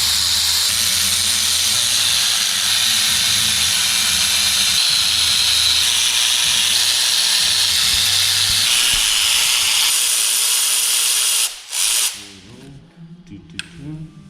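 Compressed air hissing steadily from a shop air tool with a low drone under it. It cuts off abruptly about eleven seconds in, then gives one short burst.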